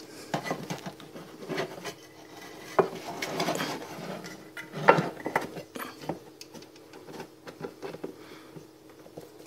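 Hand screwdriver driving screws into the underside of a wooden kitchen cabinet: irregular scraping and creaking of the screw biting into the wood, with small clicks and a sharper knock about five seconds in.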